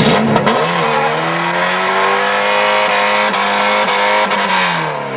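Car engine revving hard, its pitch climbing steadily for about three and a half seconds and dropping near the end, over a hiss of tyre noise as the rear wheels spin and smoke in a burnout.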